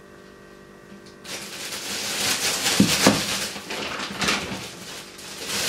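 Plastic bags crinkling and rustling as raw chicken quarters are handled and packed into a clear oven bag. The crackling starts about a second in, after a brief quiet stretch with a faint hum.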